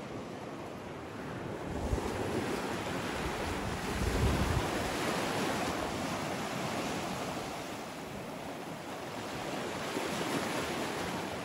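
Sea surf breaking and washing up a pebble shore: a steady rush that swells about two seconds in and again around four seconds, eases off, then builds again near the end.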